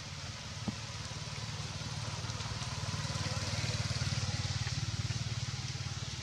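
A motor vehicle's engine running steadily off-scene with a fast low pulse, growing louder towards the middle and easing off near the end.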